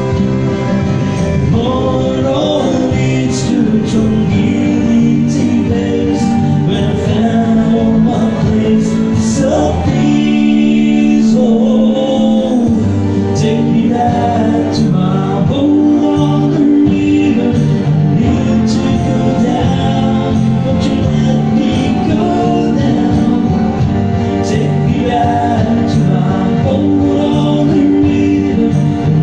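A man singing, amplified through a microphone, to his own strummed acoustic guitar, with steady, regular strums.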